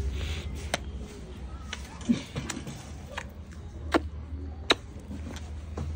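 A steady low hum, with about six sharp clicks and knocks at irregular intervals.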